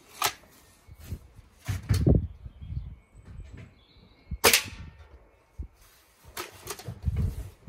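Hatsan Striker Edge .22 spring-piston air rifle firing once about halfway through: a single sharp crack. Several smaller clicks and knocks come before and after it.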